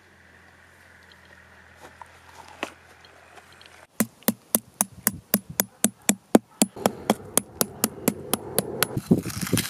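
Pointed steel tip of a hammer tapping rapidly on an ostrich eggshell to chip a hole in it. The sharp taps start about four seconds in and come about four a second.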